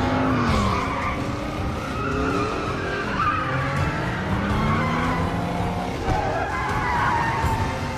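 Several high-performance car engines revving up and down with tyres squealing as the cars skid and slide through turns.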